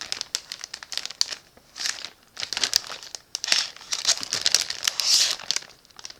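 Plastic food packaging crinkling in irregular bursts as it is handled and turned over.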